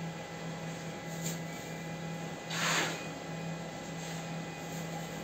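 Loose sawdust being scraped up with a plastic scoop off a CNC router bed, with one louder scrape about two and a half seconds in and a faint one earlier, over a steady low hum.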